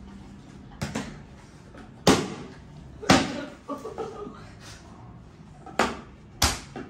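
Plastic bottles being flipped and landing on a hard floor: five sharp knocks, the loudest two about two and three seconds in.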